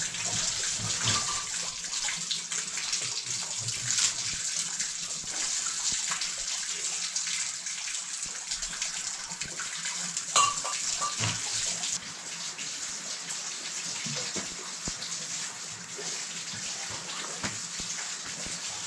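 Water running and splashing steadily, with small clicks scattered through it.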